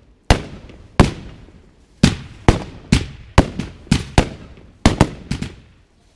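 Fireworks battery (cake) firing: a rapid, irregular series of about a dozen sharp bangs, some in quick pairs, each trailing off briefly, thickest in the middle of the run.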